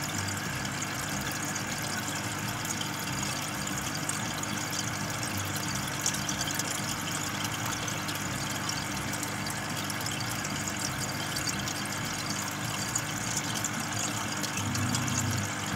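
Aquarium aeration running steadily: the low hum of an air pump under the fizz of bubbles rising from an air stone in the tank.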